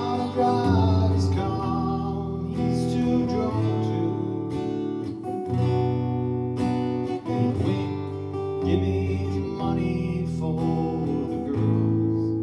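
Acoustic guitar music: chords strummed, with held low notes under them.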